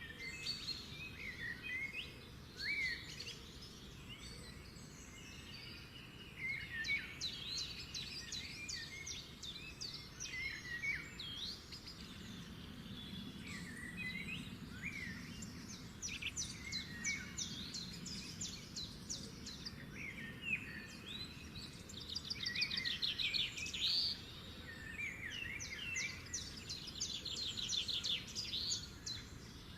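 Several small songbirds chirping and twittering, with short rising notes and quick rapid trills, over a low steady background noise.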